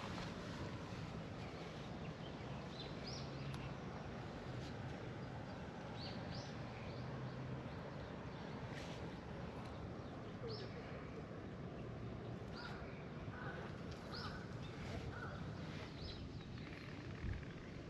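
Birds calling outdoors: short high chirps repeated every second or two, with a few lower calls about two-thirds of the way in, over a steady low background rumble.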